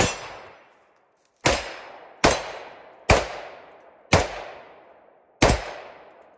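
Six gunshots from a firearm: one right at the start, then five more spaced roughly a second apart, each trailing off in a long echo.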